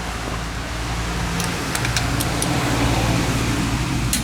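Steady low hum of a motor vehicle engine running, with a few light clicks between about one and a half and two and a half seconds in.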